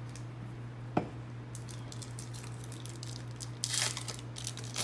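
A trading-card pack wrapper being crinkled and torn open: a sharp tap about a second in, then crackling with a louder rip near the end.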